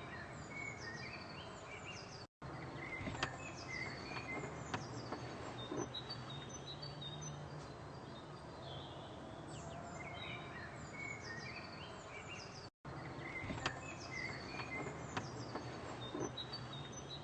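Birds chirping: short, high, downward-sweeping calls over steady outdoor background noise, with a few faint clicks. The sound cuts out briefly twice.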